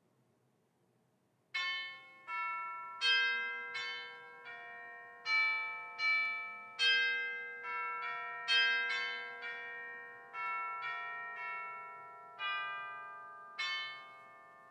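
Bells chiming a slow tune of single struck notes at several pitches, each ringing on as the next one sounds; the notes begin about a second and a half in.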